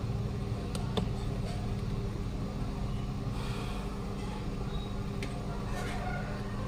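Steady low background hum with a few light clicks, twice about a second in and once more near the end, from a phone's battery and metal tweezers being handled against its opened circuit board.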